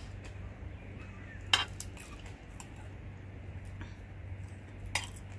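Tableware clinking during a meal: a sharp, ringing clink about a second and a half in, the loudest sound, and a smaller one near the end, with faint light ticks between, over a steady low hum.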